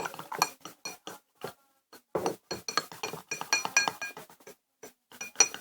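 A spoon clinking repeatedly against the side of a hard mixing bowl while stirring a thick slime mixture, with irregular quick taps that each ring on the same few bright notes.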